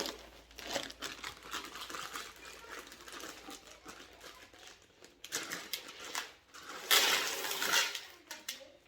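Dry black-eyed beans pouring and rattling into a bowl, a dense patter of small clicks that grows louder about seven seconds in.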